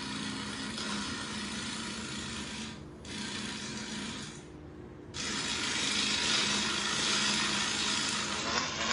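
Steady rasping hiss from a video playing on a smartphone's speaker, with a short break about three seconds in and a longer dip around four and a half to five seconds.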